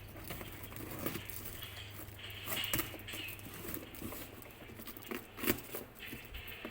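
Packaging of a parcel being handled and opened: rustling and crinkling with scattered small clicks and taps, and a sharper knock about five and a half seconds in.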